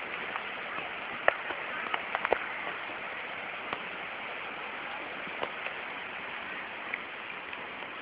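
Steady rushing noise with scattered sharp clicks and taps, the loudest about a second in.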